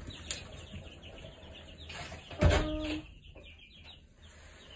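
Young chicks peeping, a string of short falling high cheeps. A loud knock about halfway through.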